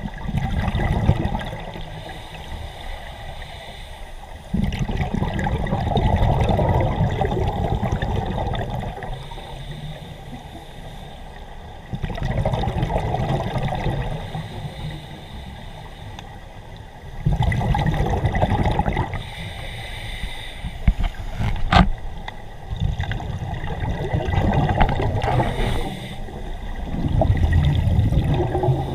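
Scuba divers' exhaled breath bubbling from the regulator underwater, a rumbling gurgle that surges about every five seconds with quieter gaps between. A single sharp click a little past two-thirds through.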